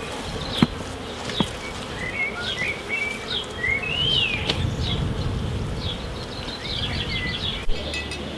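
Garden birds singing in short chirps and a few rising and falling whistled phrases, over the steady buzz of honeybees flying around the hive. Two sharp knocks in the first second and a half.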